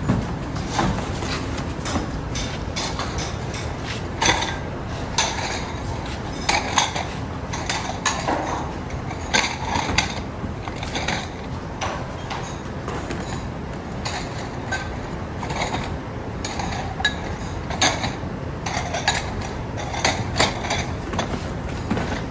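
Packing a cardboard carton with stacked ceramic bowls: irregular clatters, knocks and scrapes of the bowls against each other and the box, with cardboard flaps rustling and creaking, over a steady low hum.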